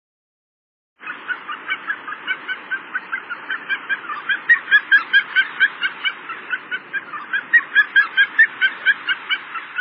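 Harlequin ducks calling: a rapid run of short, high-pitched calls, several a second, starting about a second in, over a low steady background rush.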